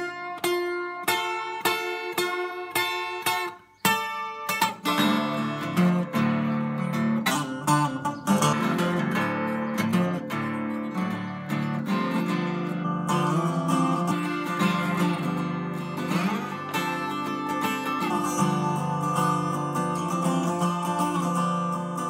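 Seagull spruce-top 12-string acoustic guitar being played: a few separate strummed chords, a short break about three and a half seconds in, then a continuous run of chords and single-note lines.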